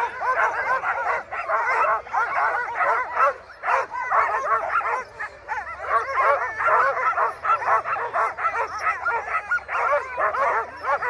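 Harnessed sled dogs barking and yipping excitedly, many dogs at once in a constant overlapping chorus.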